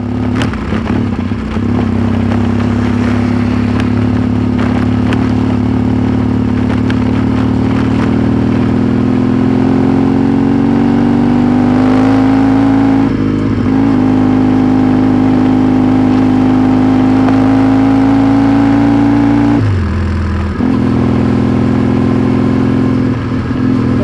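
Trail motorcycle engine under way, its pitch climbing slowly as it pulls in one gear, with a brief dip about halfway through and a clear drop in pitch at a gear change near the twenty-second mark.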